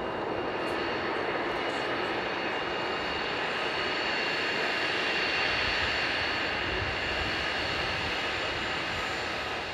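BAe 146-family regional jet taxiing on its four small turbofan engines at low power: a steady high whine over a rushing hiss, growing slightly louder around the middle and easing again near the end.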